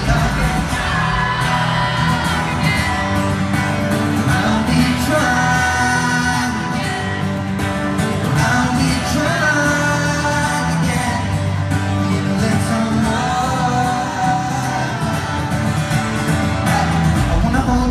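Live acoustic pop: a male singer's long held, wordless vocal lines over strummed acoustic guitar, with the echo of a large arena.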